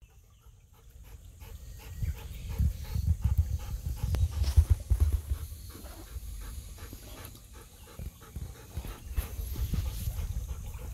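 Golden retriever panting in quick, even breaths, with low rumbling thumps that come and go from about two seconds in.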